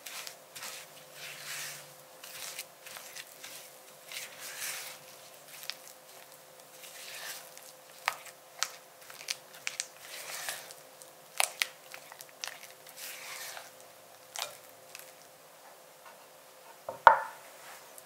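Silicone spatula scraping and squishing softened cream cheese and sugar against a glass bowl, in irregular strokes with small clicks. Near the end there is one much louder sharp knock.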